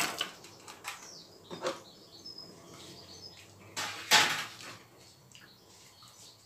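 Kitchen cookware sounds: shredded carrots tipped from a plastic tub into broth in a stainless steel pot, then a plastic ladle stirring the soup, with light knocks and sloshing and one louder stroke about four seconds in.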